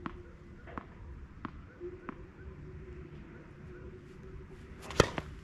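Tennis ball bounced a few times on a clay court, about one bounce every three-quarters of a second, then struck hard by the racket on a serve about five seconds in. The racket hit is the loudest sound, over a faint steady hum.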